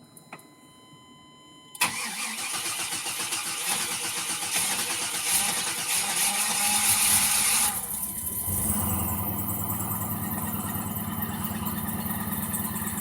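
1999 GMC Yukon being cold-started: the starter cranks the engine for about six seconds before it catches, a hard start in the cold. It then settles into a steady cold idle, where the owner's mechanic puts a knocking noise down to piston slap from slightly oval cylinder sleeves.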